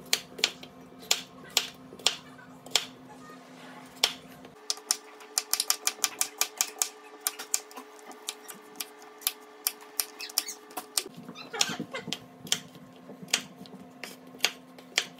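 Chef's knife cutting potatoes on a wooden cutting board: sharp knocks of the blade meeting the board, a few spaced strokes at first, then a quick run of chops in the middle, slowing again near the end.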